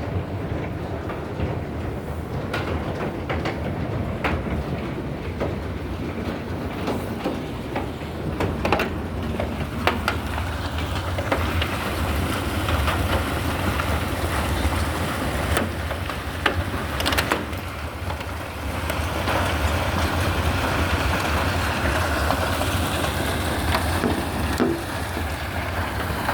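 Hailstones pelting down in a storm: a steady rushing noise with many sharp ticks and knocks of stones striking, heavier in the second half.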